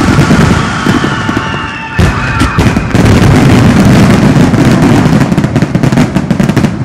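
Dense finale barrage of aerial firework shells bursting in rapid succession, bangs piling on one another over a continuous low rumble. There is a brief lull about two seconds in, then the loudest volley, and the barrage thins near the end.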